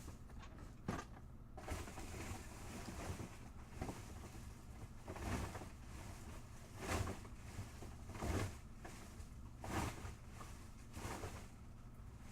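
Trading card packs being opened and the cards handled: short, soft rustles about every one to two seconds, over a low steady hum.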